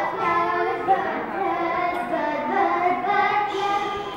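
A child singing a tune in drawn-out notes.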